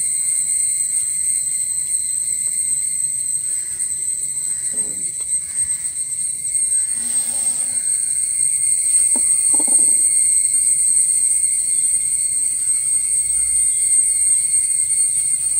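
Steady, high-pitched chorus of insects, with a brief scratchy noise about seven seconds in and a short, lower sound near ten seconds.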